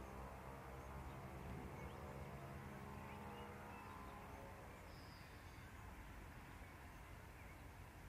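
Quiet outdoor background with a faint low hum that fades away over the first few seconds, and a brief faint high bird chirp about five seconds in.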